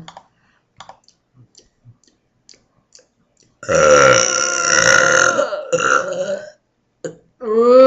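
A deliberate, loud burp lasting about two seconds, starting a little past the middle, followed by a short second push. A few faint clicks come before it.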